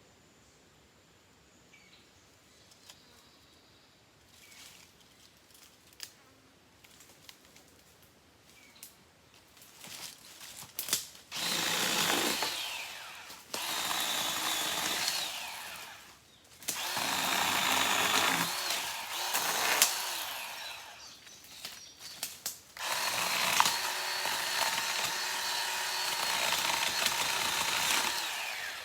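Chainsaw cutting wood in three runs of about five seconds each, starting about eleven seconds in, its pitch shifting as it works. Before that, only faint small clicks and rustles.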